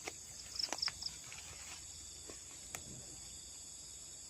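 Steady high-pitched chorus of insects, with a few brief clicks and rustles about a second in and another single click later.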